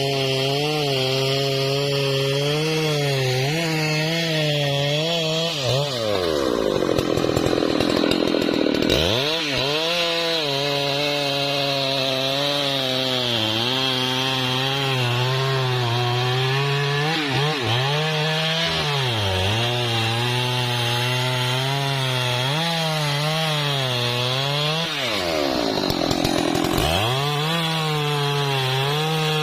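Husqvarna 3120 XP, a large two-stroke chainsaw, cutting into wood with its engine pitch wavering under load. Twice it surges to full revs, about six seconds in and again near the end, then drops back as the chain bites.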